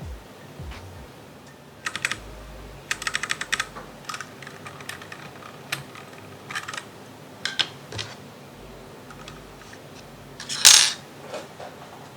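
Keys of a Royal Kludge RK G68 mechanical keyboard clacking: scattered single keystrokes, a quick run of about eight strokes a few seconds in, and one louder, longer clatter near the end.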